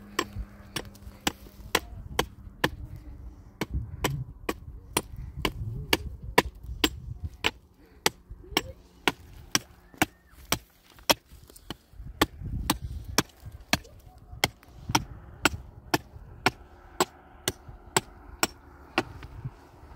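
Repeated sharp strikes of a tool on wood, evenly paced at about two a second.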